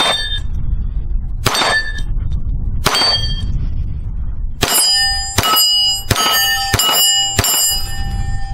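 Browning Buck Mark .22 LR pistol firing eight shots at a steel gong target, each shot followed by the steel ringing from the hit. The first three shots come about a second and a half apart, then five quicker ones under a second apart, the ringing overlapping and dying away near the end.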